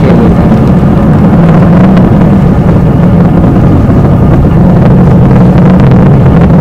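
Delta IV Heavy rocket's three RS-68A engines heard from miles away, a loud, steady low rumble with a few faint crackles.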